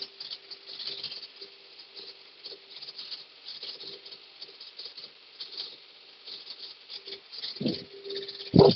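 Steel track and undercarriage of a Komatsu PC30-3 mini excavator rattling and clinking as the machine is set back down and the track slack is taken up, over a faint steady hum. Two heavier clunks come near the end.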